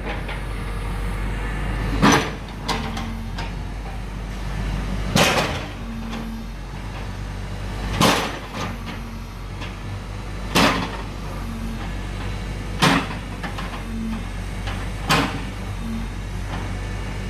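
JCB's diesel engine running steadily while its bucket hammers down on a concrete water-control box, giving sharp bangs about every two and a half seconds, seven in all.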